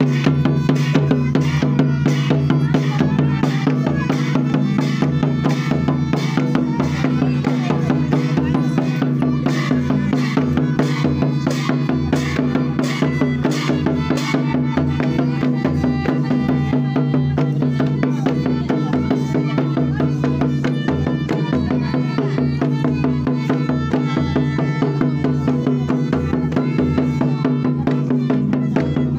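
Traditional folk dance music: fast, dense drumming over a steady low drone.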